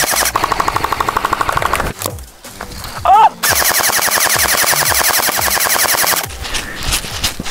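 Airsoft rifle firing on full auto in two long bursts, a fast, even rattle of shots. The first burst lasts about a second and a half. After a short break the second runs for nearly three seconds.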